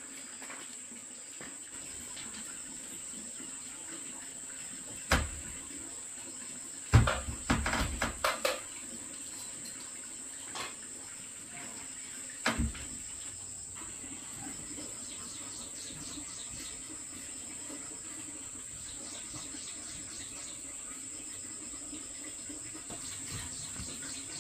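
Steady high-pitched insect chirring, with a sharp knock about five seconds in, a quick run of clattering knocks a couple of seconds later, and another knock about halfway through.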